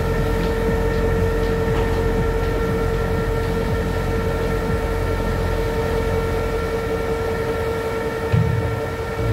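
Lifeboat davit winch hoisting the enclosed lifeboat: a steady whine with overtones over a constant low rumble, with a few faint ticks early and a short low bump about eight seconds in.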